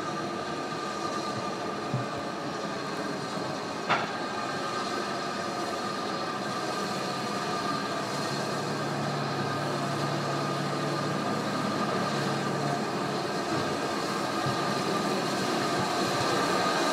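B1 class 4-6-0 steam locomotive approaching with its train: a continuous rumble and hiss that grows louder toward the end, with a steady high ringing over it. A single sharp click about four seconds in.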